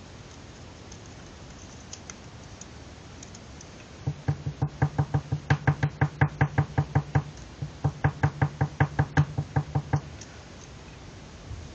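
Rapid knocking, about four or five knocks a second, in two runs of about three seconds each with a short break between.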